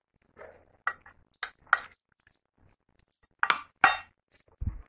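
A utensil clinking and scraping against a glass bowl while stirring a moist filling: several short sharp clinks, the two loudest about three and a half seconds in, then a dull low thump near the end.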